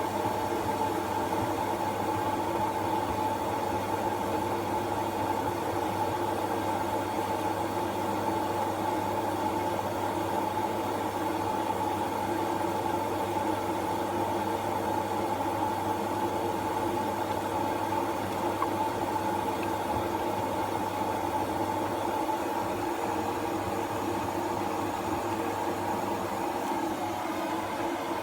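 Washing machine running: a steady machine hum with a constant whine over it, easing off slightly near the end.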